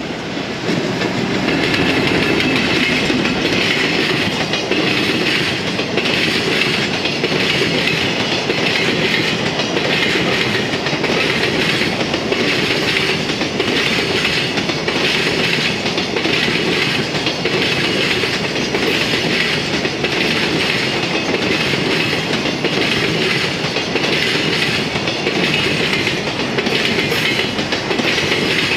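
JR Freight container train, led by an EF210 electric locomotive, passing close by: a steady rumble of steel wheels on rail with repeated clickety-clack as the container wagons' wheels cross the rail joints. It grows loud about half a second in as the train arrives.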